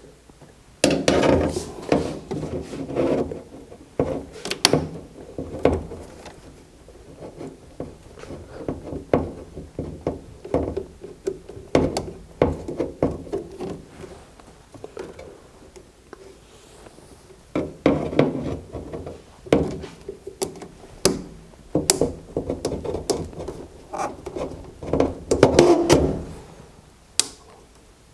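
Knocks, scrapes and rubbing from a gas furnace's ducting and panels being handled and worked loose, in irregular bursts with short pauses.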